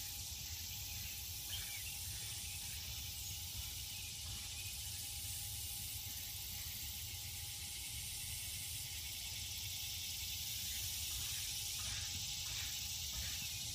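Steady background hiss with a low rumble and a faint constant hum, with a few soft clicks near the end.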